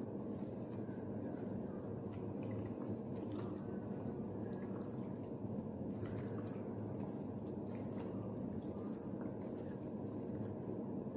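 Gloved hands kneading raw chicken in an oily herb marinade, making soft, irregular wet squelches over a steady low hum.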